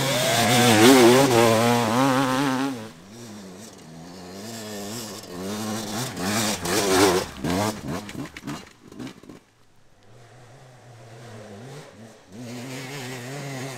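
Enduro dirt bike engine revving unevenly with quick throttle changes, its pitch wavering up and down. It is loudest in the first few seconds and again about seven seconds in, nearly drops away around nine and a half seconds, then runs steadier and lower.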